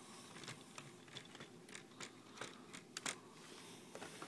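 Faint handling noise: scattered irregular clicks and light rustling from a hand-held camera being moved close over Lego bricks.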